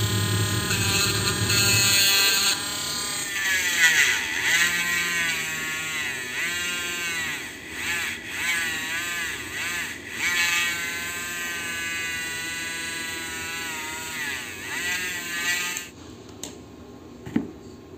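Handheld rotary tool whining as its bit grinds down the base of a toy car. The pitch dips and recovers again and again as the bit is pressed into the part, and the tool stops abruptly about 16 seconds in.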